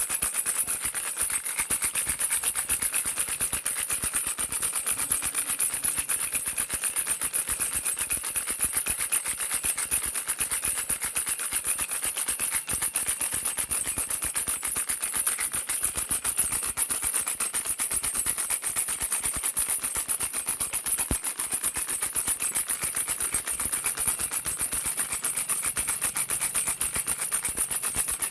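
Baby rattle shaken rapidly and without pause: a dense, even stream of fast, bright clicks.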